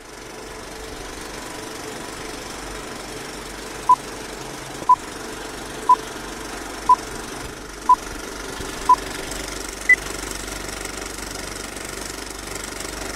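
Old-film countdown-leader effect: the steady clattering whir of a film projector with a faint hum, over which a short beep sounds once a second six times, followed by a single higher-pitched beep.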